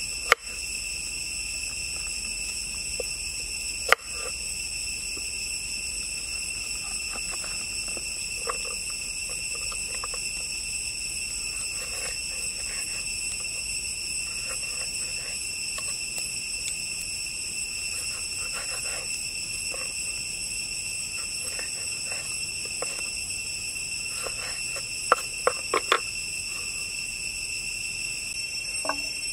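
Forest insect chorus droning in several steady high tones, over a kitchen knife cutting shallots and chilies on a wooden cutting board, with a few sharp knocks of the blade on the board and a quick run of four chops near the end.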